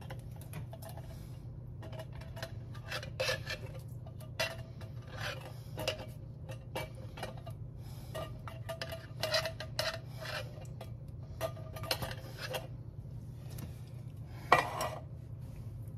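A silicone spatula scraping corn out of a metal can and stirring it into a stoneware slow-cooker crock, making a scatter of short clicks, taps and scrapes, with one sharper knock near the end. A steady low hum runs underneath.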